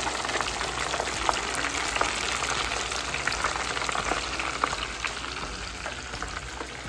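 Food frying, a steady sizzle full of small crackles and pops, slowly easing off.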